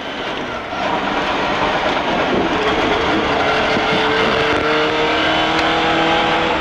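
Rally car's engine and tyre noise heard from inside the cabin as the car drives on a wet road, getting louder about a second in as it picks up speed.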